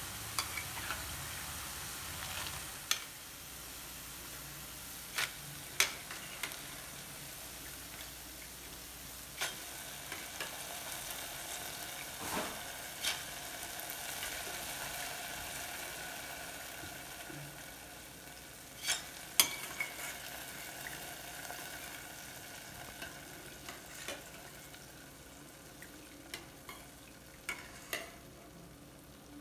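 Boondi batter droplets frying in hot oil with a steady sizzle, while a metal slotted spoon stirs them and clicks and scrapes against the pan every few seconds. The sizzle grows fainter in the second half.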